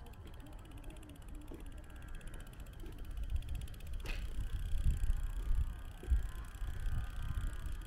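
Wind buffeting the camera's microphone, a gusty low rumble that grows louder from about halfway through, with a faint fast ticking near the start and a single sharp click about four seconds in.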